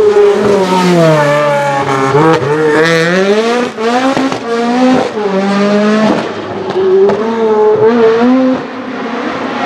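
Lotus Exige Cup 260's supercharged four-cylinder engine revving hard as the car pulls away, its pitch repeatedly falling and climbing again through quick gear changes and throttle lifts. It fades somewhat near the end as the car gets farther off.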